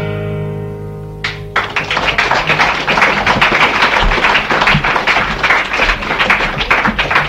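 An acoustic guitar's closing chord rings and fades. About a second and a half in, audience applause breaks out and keeps going as a dense, even clapping.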